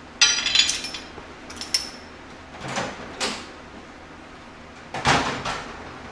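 Metal tools and parts clanking while being handled: first a ringing metallic clank, then a short ringing tick and a few duller knocks and clatters.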